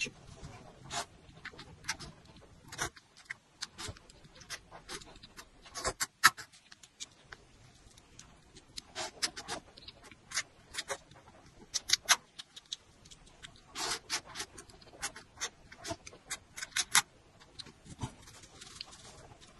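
Close-up slurping and chewing of instant noodles: many short, wet mouth clicks and smacks, coming in clusters.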